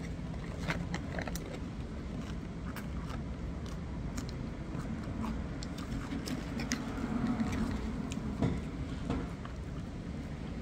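Steady hum of road traffic with scattered small clicks and rustles, swelling briefly a little past the middle.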